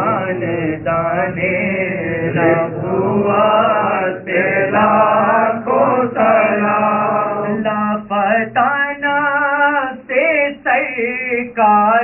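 A man's voice chanting an Urdu salam (naat) in a wavering, melodic sung recitation, broken by short pauses for breath.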